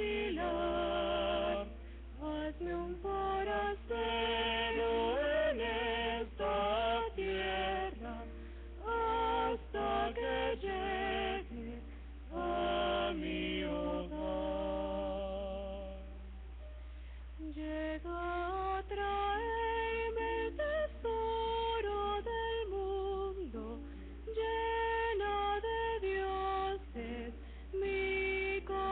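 A woman singing a Spanish-language hymn with vibrato, in a special music duet with a man, over a steady low hum.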